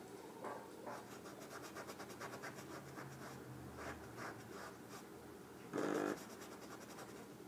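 Small paintbrush dabbing and scraping acrylic paint across a canvas: faint, quick scratchy strokes, with one brief louder rasp about six seconds in.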